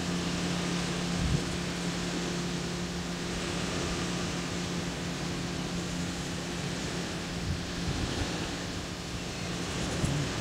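Small sea waves washing onto a sandy beach, with wind on the microphone. A steady low hum runs underneath.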